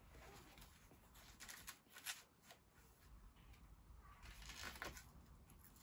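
Faint rustling and flicking of paper pages as a small book is leafed through, a few soft flicks about two seconds in and again near the end.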